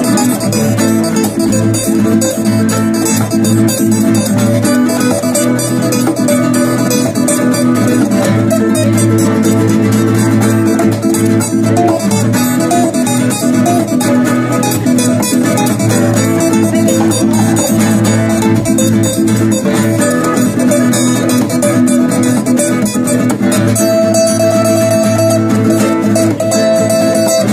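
Instrumental guitar duet: a steel-string acoustic guitar and a nylon-string classical guitar played together through small amplifiers, plucked notes running on without a break. A note is held near the end.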